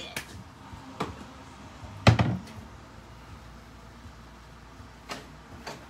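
Wooden spoon stirring thick stuffing in a stainless steel skillet. A few light knocks of spoon against pan, and one louder thunk about two seconds in.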